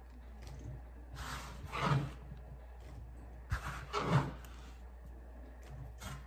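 Sliced mushrooms being swept by hand across a plastic cutting board: short sliding scrapes about a second in and again near four seconds, the second one opening with a sharp knock.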